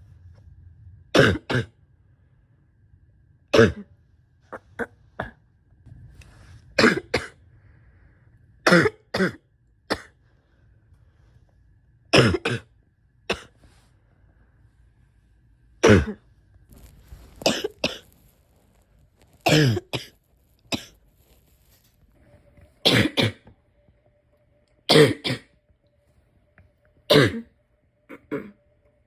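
A person coughing repeatedly, single coughs and quick runs of two or three every couple of seconds. It is a chesty cough from a respiratory illness on top of asthma and chronic bronchitis.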